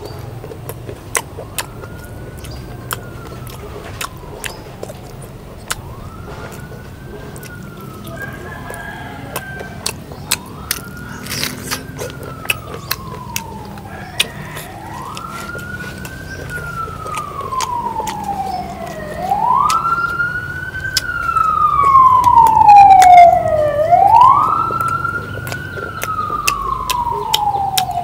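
A siren wailing in repeated cycles, each a quick rise and a slower fall in pitch, about one cycle every four seconds. It grows louder past the middle, then eases toward the end. Sharp clicks are scattered throughout.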